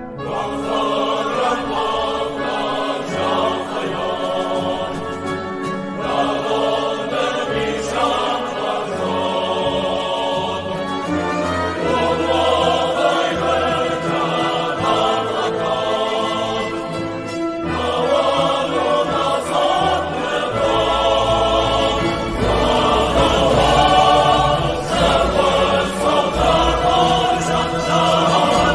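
A national anthem sung by a choir with orchestral backing; the low end grows fuller about two-thirds of the way through.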